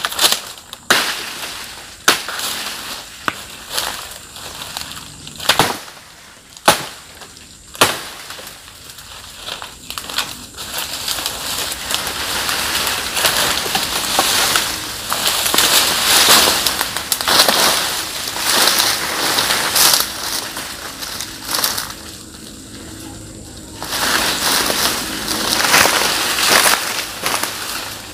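Dry sago palm fronds crackling and snapping: a run of sharp snaps, then long stretches of rustling and crunching as a frond stalk is pulled free from the palm clump.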